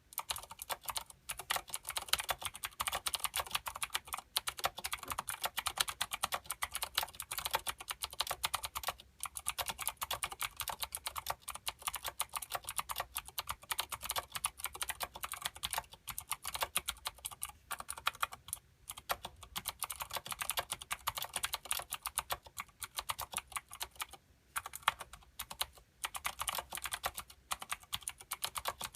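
Fast, continuous typing on a Filco Minila mechanical keyboard with clicky Cherry MX Blue switches and thick PBT doubleshot keycaps, a dense stream of sharp key clicks broken by a few short pauses.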